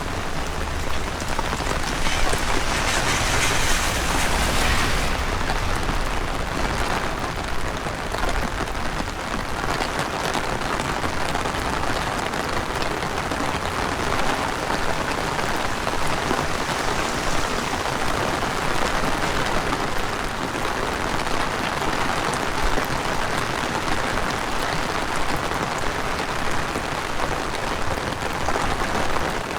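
Heavy rain falling steadily, an even hiss of rain on street surfaces. It swells for a few seconds near the start, with wind rumbling on the microphone.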